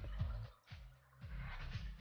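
Background music with a low, repeating beat that drops out briefly about half a second in.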